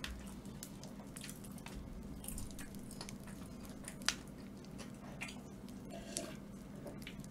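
A person chewing boneless fried chicken close to the microphone: soft, wet squishing mouth sounds with scattered small clicks, and one sharper click about four seconds in.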